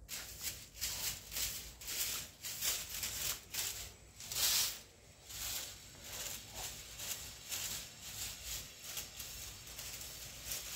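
A long-handled fibre broom sweeping a tiled floor. The bristles scrape the tiles in quick strokes, about three a second, with one longer, louder stroke near the middle.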